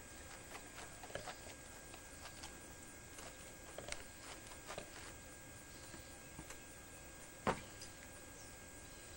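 Faint scattered footsteps and handling knocks as two men carry a couch section across an asphalt driveway, with one louder thump about seven and a half seconds in, over a steady camcorder tape hiss.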